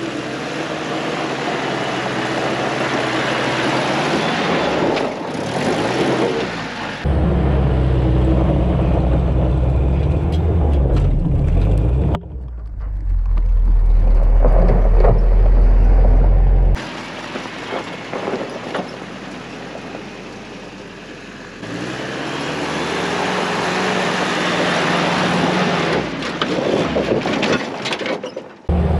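Willys CJ-2A Jeep engine revving under load as it climbs a loose, rocky hill on ATV tires, with gravel crunching and a tire spinning and throwing dirt as the open differentials lose traction in the cross-axle dips. The sound changes abruptly several times, at times with a heavy close-up rumble.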